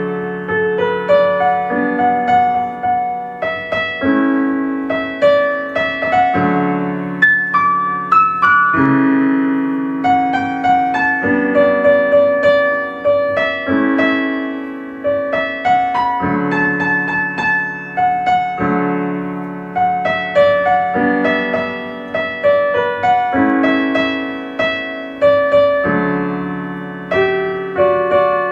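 Slow, gentle piano music: a melody over held chords, each note struck and left to ring and fade.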